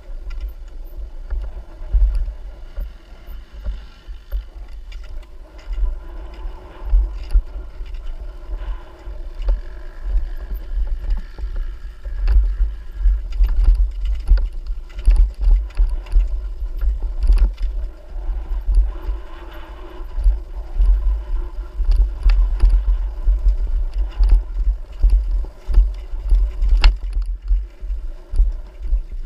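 Off-road trail motorbike engine running while riding, half buried under heavy wind buffeting on an onboard microphone. The engine pitch rises and falls with the throttle, and scattered sharp knocks come through.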